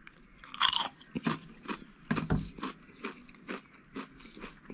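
Close-up crunching of a Chips De Madrid potato chip being bitten and chewed: one loud crunch about half a second in, then a run of short crunches, about three a second.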